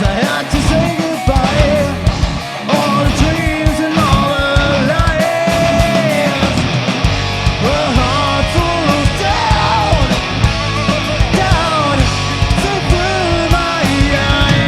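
A live rock band playing an instrumental stretch: loud guitars and a busy drum beat, with a melodic lead line bending up and down in pitch above them.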